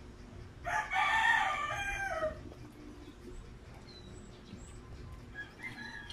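A rooster crows once, a single call of about a second and a half that starts just under a second in and drops in pitch at its end. It is the loudest sound here.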